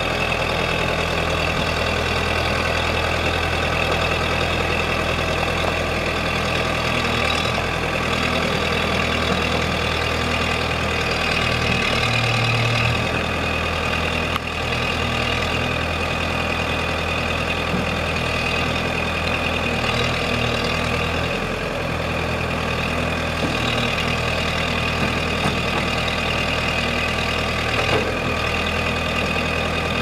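1998 Ford 655E backhoe loader's diesel engine running steadily with an even, unchanging note while the loader is worked.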